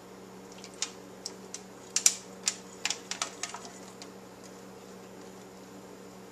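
Light clicks and ticks as oil and minced garlic drip from a tipped small frying pan onto asparagus on a metal baking sheet. There are about a dozen of them, stopping about four seconds in.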